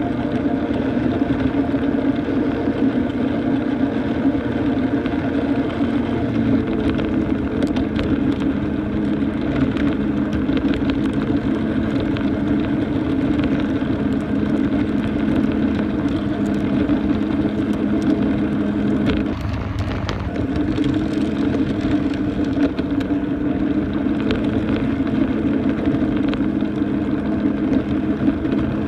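Ride-on miniature train running along its track: a steady motor drone with a constant hum, a few faint clicks, and a brief dip in the drone about two-thirds of the way through.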